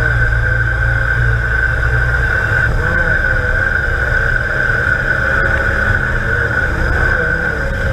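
Off-road trial vehicle's engine running steadily as it is driven over rocky ground, heard from inside the cabin, with a steady high whine over it.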